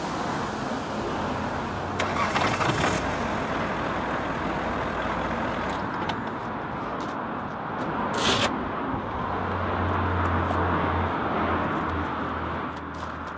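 Car engine running, turning a jacked-up road wheel that carries a cone log-splitter spike. A low hum comes and goes, and there are a few sharp clicks along the way.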